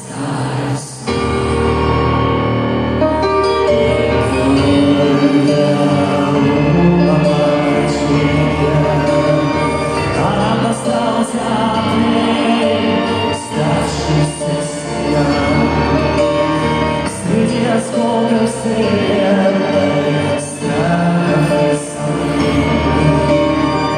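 Live rock band with violin and cello playing a sustained, full passage of a song, with occasional drum and cymbal hits. It is heard from the audience in a reverberant concert hall.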